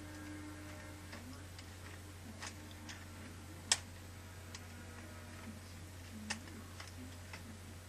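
A 3x3 Rubik's cube being turned by hand: irregular plastic clicks and clacks as the layers turn, with two sharper clicks a little before halfway and about three-quarters in. It is a poor cube that clicks while turning. A steady low hum runs underneath.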